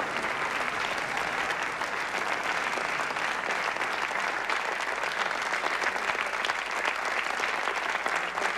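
Theatre audience applauding steadily: many hands clapping at once in an even, unbroken patter.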